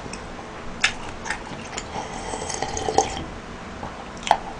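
A person gulping a drink from a plastic cup: wet swallowing and slurping sounds, with a few short sharp clicks.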